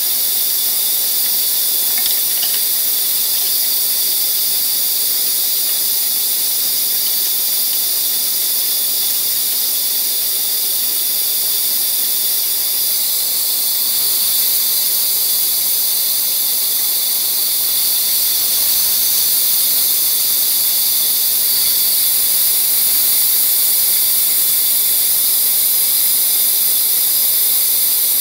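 Band saw running and cutting pieces of hardwood fed by hand, a steady high hiss that grows slightly louder from about halfway through.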